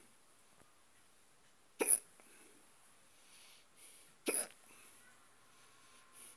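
A person hiccuping in a stubborn, persistent bout: three short, sharp hiccups about two and a half seconds apart, the last right at the end.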